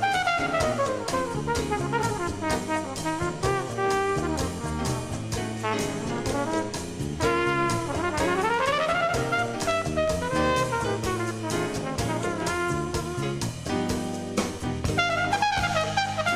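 Big-band jazz played from a vinyl record: a brass section of trumpets, trombones and saxophones over drum kit and bass. A long falling pitch slide comes in the first few seconds, and a rising swoop about eight seconds in.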